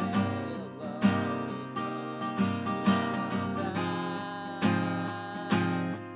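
Guitar playing a slow seventh-chord progression, each chord struck about once a second and left to ring.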